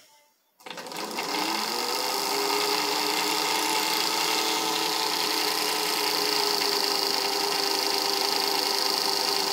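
Singer 15C sewing machine's motor starting under the foot pedal about half a second in and running at a steady speed, spinning the bobbin winder to fill the bobbin. The hand wheel is released, so the motor turns the wheel and winder while the needle bar stays still.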